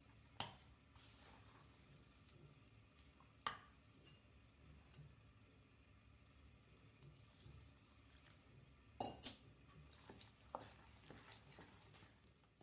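Faint scraping of a steel spoon against a stainless steel bowl while mixing rice flour dough, with sharp metallic clinks about half a second in, at three and a half seconds, and twice in quick succession around nine seconds.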